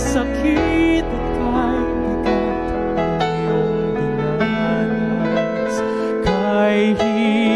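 A song: a voice singing with vibrato over piano accompaniment.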